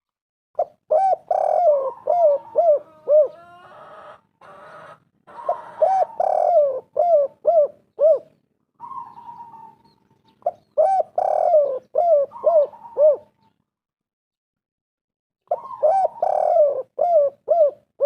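Spotted doves cooing: four phrases, each a run of rolling coos, about five seconds apart, with a second bird's steadier, higher coo between them.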